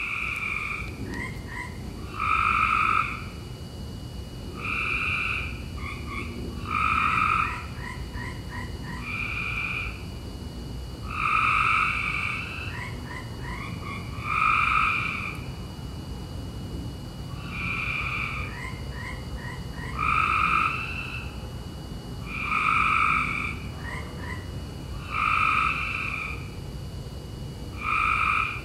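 Frogs calling at night: loud calls, each under a second long, repeat about every two to three seconds, with quicker, quieter chirping notes in between, over a steady low background hiss.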